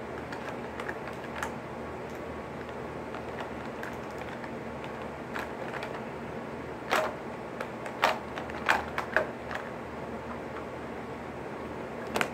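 Small clicks and knocks of makeup items and cases being handled and set down on a wooden table, with a few sharper knocks between about seven and nine and a half seconds in, over a steady low hiss.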